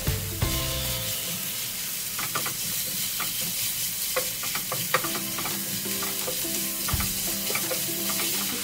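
Sliced raw beef and diced vegetables sizzling steadily in a hot frying pan while being stirred and turned with tongs, which click and tap against the pan again and again.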